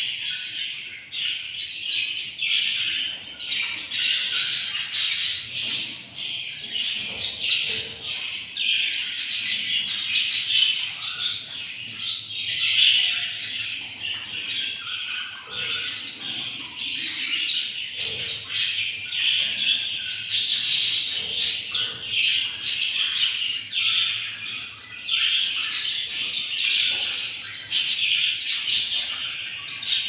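Budgerigar chicks cheeping in the nest, a continuous run of short raspy begging calls, several a second.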